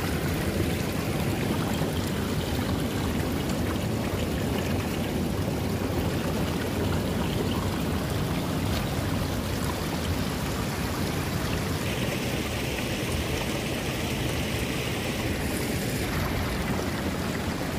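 Steady rush of flowing river water, with a higher hiss joining for a few seconds about twelve seconds in.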